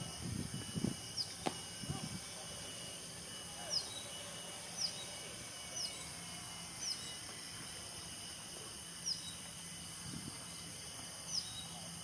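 Crested goshawk calling: a loose series of short, thin, high notes, each sliding downward, spaced roughly a second or two apart.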